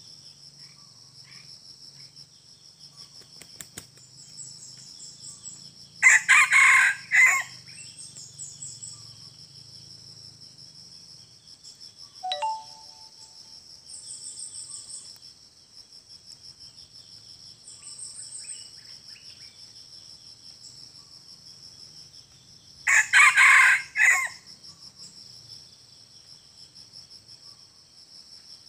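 Red junglefowl rooster crowing twice, about 17 seconds apart, each a short crow of about a second and a half. Under it runs a steady, high-pitched drone of insects.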